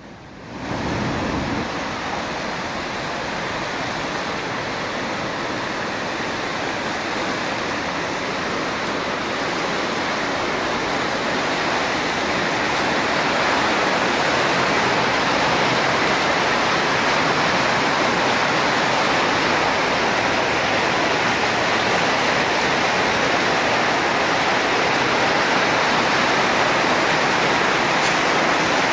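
The Truckee River in flood, fast muddy water rushing and churning around concrete bridge piers: a steady, unbroken rush of water that grows louder about twelve seconds in.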